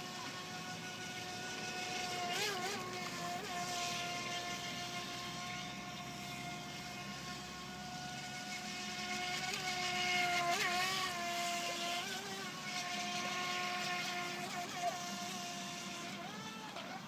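Small electric motor of an FT007 mini RC speedboat running with a steady high-pitched whine over a hiss. The pitch briefly dips and wobbles a few times.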